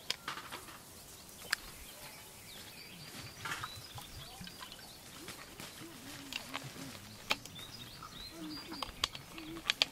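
Makgeolli poured from a plastic bottle into a small metal bowl, with a few sharp light clicks of the bottle and tableware being handled. Birds chirp faintly in the background.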